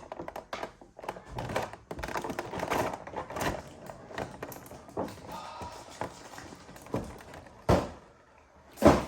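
Figure packaging being handled and opened: rustling and scraping of box and plastic, then two sharp knocks near the end.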